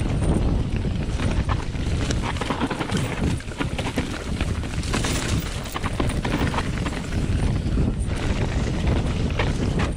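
Specialized Enduro Expert 29 mountain bike running fast down a dirt trail covered in dry leaves: tyres rolling over dirt and leaves and the bike rattling with many small clicks, over a steady rumble of wind buffeting the camera microphone.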